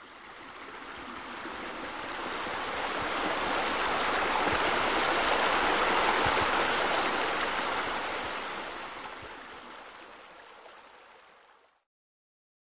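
Water splashing from a pool waterfall. It fades in, is loudest about halfway through, then fades out.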